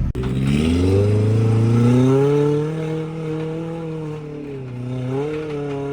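An off-road vehicle's engine revving up and held at high revs, its pitch climbing over the first second and then steady, with a brief dip and recovery about five seconds in.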